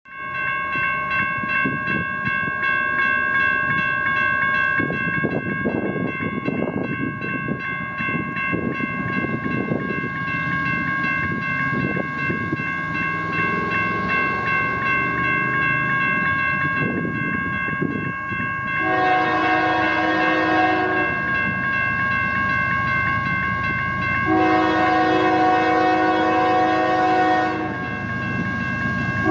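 CSX freight train running, with a steady high whine and rumble throughout. The locomotive horn sounds two long chord blasts, the first about two-thirds of the way in and the second a few seconds later, with a third starting at the very end.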